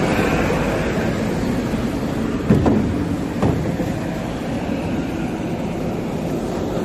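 JCB 3DX backhoe loader with its diesel engine running steadily while its steel bucket works inside a tipped-up steel dumper body. Two sharp metallic clanks come about a second apart, a little before the middle.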